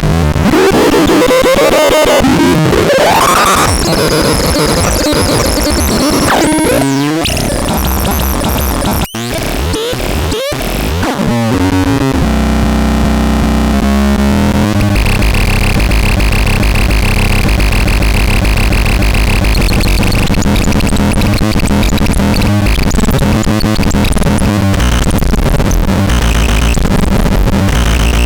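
Tenechlot electronic sound device making harsh, distorted, noisy electronic sound. For the first dozen seconds its tones waver and sweep up and down, then they settle into a dense, steady drone with a high hiss.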